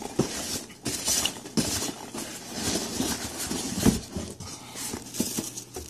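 Hands rummaging through packing peanuts and tissue paper in a cardboard box: irregular rustling and crinkling.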